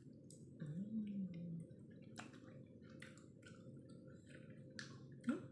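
Close-up wet chewing and squishy mouth sounds of someone eating a cooked black chicken foot, made up of scattered short smacks and clicks. A short hum of the voice rises and falls about a second in.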